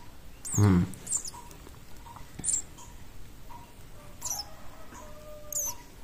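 Eurasian tree sparrow nestling begging: about five short, high chirps, each falling in pitch, at irregular intervals while it gapes to be fed. A brief human vocal sound comes under a second in.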